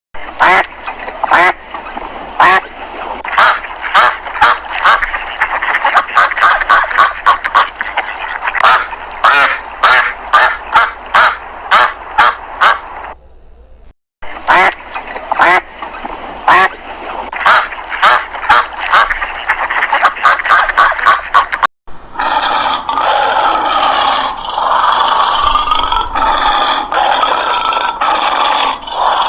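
Ducks quacking in quick repeated calls, broken by a brief pause about halfway through. Near the end the quacking cuts off and a different, steadier pulsing sound takes over.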